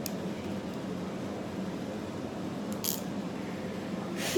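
Quiet handling of a LOL Surprise ball as its stubborn zipper layer is tugged at: faint plastic rustling with a couple of short clicks. A sudden loud vocal noise breaks in right at the end.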